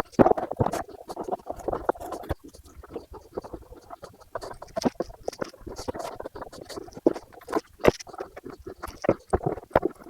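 Parts being pulled out of a fiberglass RC boat hull by hand: irregular clicks, knocks and short scratchy rustles.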